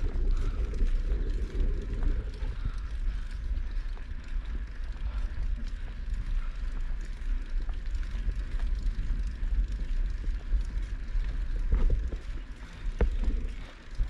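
Mountain bike being ridden over a rough dirt trail: tyres rolling over ground and stones and the bike rattling, with a heavy low rumble of wind on the microphone. A couple of sharp clicks come near the end.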